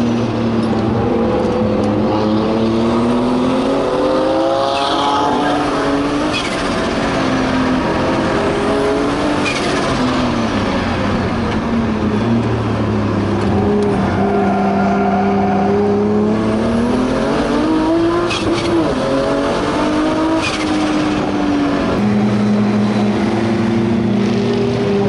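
Turbocharged 3.2-litre RB straight-six of an R34 Skyline GT-R, heard from inside the cabin, running under load and easing off. Its pitch climbs and falls several times, with steady cruising stretches between, and a few brief sharp clicks come through.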